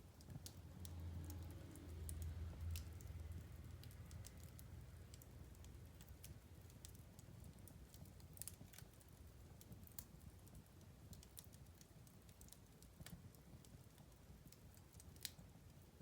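Wood fire crackling faintly, with irregular sharp snaps and pops over a low rumble that fades after about four seconds.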